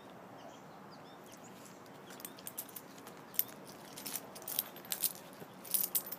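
Irregular clinks and rattles of a guide-dog harness's metal buckles and fittings as it is fastened on the dog. They start about two seconds in and grow louder near the end.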